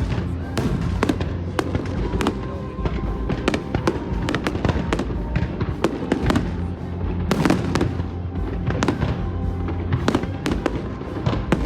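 Fireworks exploding in quick, irregular succession, sharp bangs and crackles, with music playing underneath.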